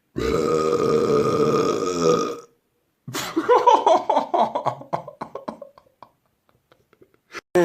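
A person burping loudly on purpose: one long, steady burp of about two seconds, then after a short pause a second, choppier burp that rattles on for about three seconds.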